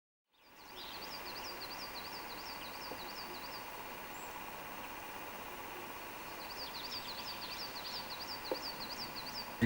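A songbird singing two bouts of a rapid, repeated high-pitched phrase over a steady outdoor background hum, fading in at the start. There is a single soft knock shortly before the end.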